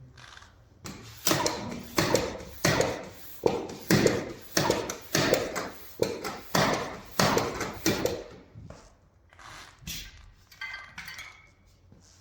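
Hand pump inflating a bicycle tyre: about a dozen regular pump strokes, roughly one and a half a second, then a few fainter, slower strokes near the end.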